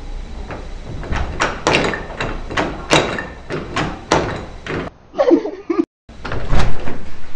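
A door being banged and rattled: a run of sharp knocks about three a second. A short wavering creak comes about five seconds in, then louder bangs near the end.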